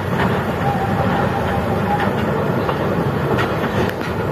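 Heavy diesel tipper trucks' engines running at a river crossing: a steady, loud, heavy rumble, with a few faint clicks over it.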